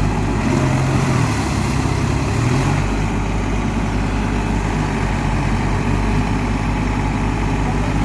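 Diesel tractor engine running, its pitch rising briefly about half a second in and settling back to a steady run after about three seconds.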